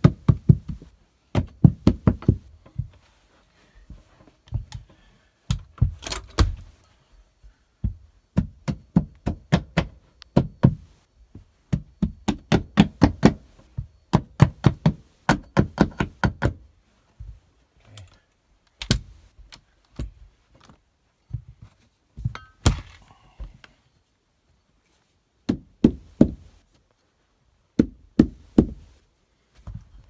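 A hammer tapping a carpet tucking tool in quick runs of sharp knocks, about four or five a second, with short pauses between runs, driving the re-stretched carpet's edge down into the gap at the baseboard.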